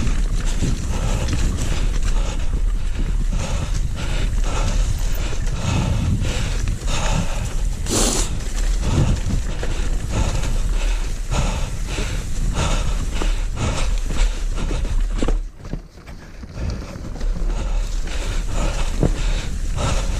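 Bike rattling and clattering over loose rocks on a downhill trail, a dense run of irregular knocks, with wind buffeting the microphone; the sound dips briefly about three-quarters of the way through.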